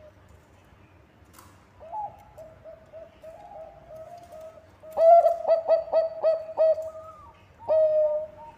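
Thai-bred zebra dove (perkutut bangkok) cooing. A short call comes about two seconds in, followed by soft repeated notes. Around five seconds in there is a loud quick run of staccato coos, and the song ends in one longer drawn-out coo near the end.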